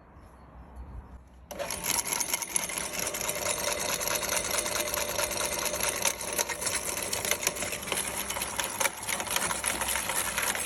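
Electric meat grinder switched on about a second and a half in, its motor running steadily while it grinds cucumbers with a dense crackling; it cuts off suddenly at the end.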